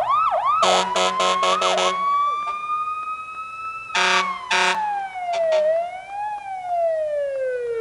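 Electronic siren sound effect: a fast yelp at the start, then a slow wail rising and falling, with a quick run of five short blasts about a second in and two more about four seconds in.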